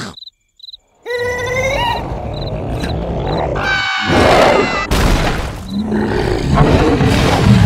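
Cartoon sound effects: faint cricket chirps, then cartoon larvae crying out in rising, high-pitched squeals over a loud growling roar from a giant carnivorous plant. A sharp snap comes about five seconds in as its jaws shut.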